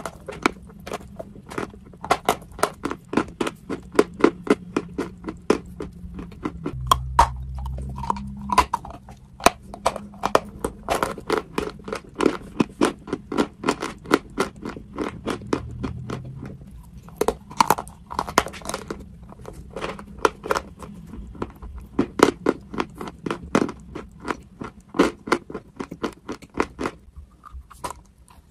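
Close-up crunching and chewing of a dry white lump of edible chalky clay: crisp crunches come several times a second as it is bitten and chewed.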